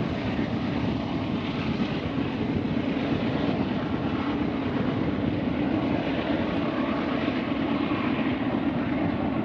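Freight train rolling past with a steady rumble of wheels on rail.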